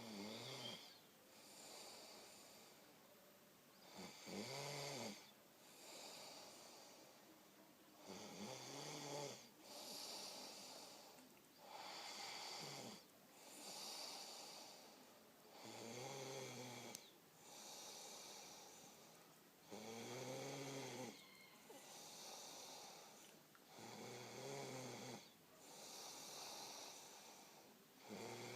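A sleeping person snoring in a steady rhythm: a short pitched snore about every four seconds, each followed by a long breathy hiss of air.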